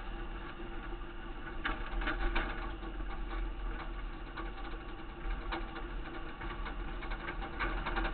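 Grain truck driving over rough dirt, heard through a camera stuck to its side: a steady low engine hum under dense rattling and clicking, heaviest about two seconds in and again near the end.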